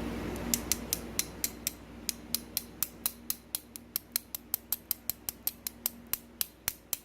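Rapid, evenly spaced small mechanical clicks, about four a second, made while a pin-tumbler lock is being taken apart.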